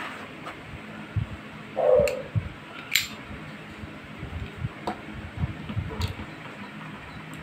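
Handling noise from a metal airsoft revolver as its grip panel is taken off to reach the CO2 cartridge: scattered clicks and light knocks. The loudest moment is a short burst about two seconds in, followed by a sharp click about a second later.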